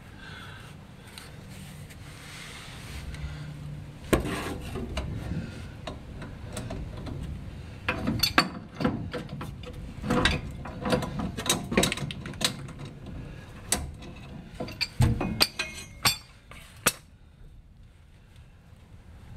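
Pipe wrench clicking and clanking against a metal fitting under an old truck as a tight fitting is worked loose: a run of irregular metallic knocks and clicks from about four seconds in until near the end.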